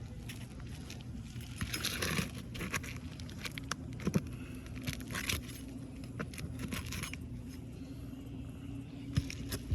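Hands-on roofing work on asphalt shingles: irregular scraping and crinkling of shingles with metallic clicks and a few sharp knocks, over a steady low hum.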